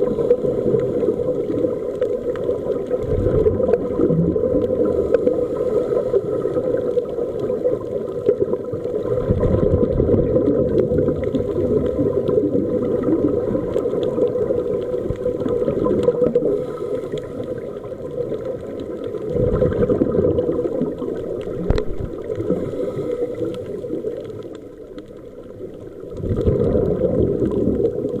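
Underwater scuba breathing: exhaled bubbles from the regulator rushing and gurgling past the camera, swelling every several seconds over a steady muffled hiss.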